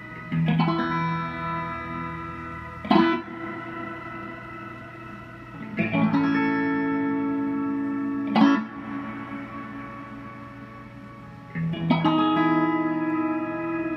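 Electric guitar played through a Vox Delaylab delay pedal: five strummed chords, one every two to three seconds, each left to ring out and fade slowly. A steady low hum runs underneath.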